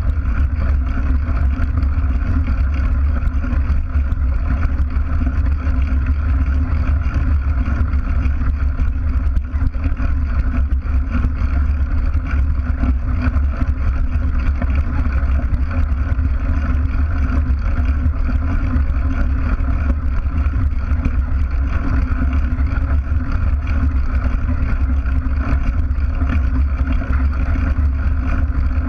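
Steady low rumble of a mountain bike rolling over a gravel dirt track, heard through a camera mounted by the wheel: knobby tyre noise and frame vibration.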